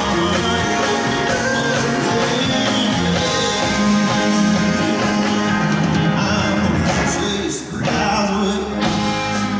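Live rock and soul band playing an instrumental break, with a trombone taking a solo over the band.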